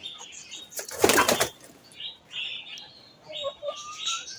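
A bird's wings flapping in one brief burst about a second in, among repeated short high chirps of small birds.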